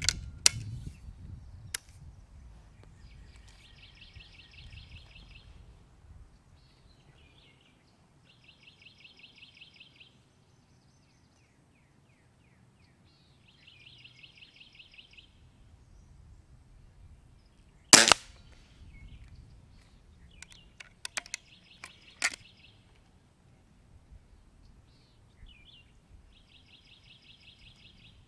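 Weihrauch HW 97K .177 underlever spring-piston air rifle firing a single shot about two-thirds of the way through, one sharp crack that is the loudest sound. A couple of metallic clicks come near the start as the cocking lever is closed, and a few more follow the shot as the rifle is handled. Meanwhile a short buzzing trill repeats several times in the background.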